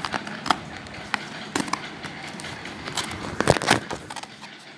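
Cardboard shipping box being handled and its flaps worked open: a run of sharp clicks and crackles, busiest near the end, over a steady low background rumble.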